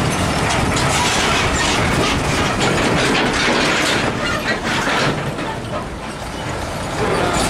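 Heavy tractor-trailer trucks rolling slowly past on a rough road: diesel engines running under a clattering rattle from the loaded flatbed trailers. Briefly quieter about six seconds in.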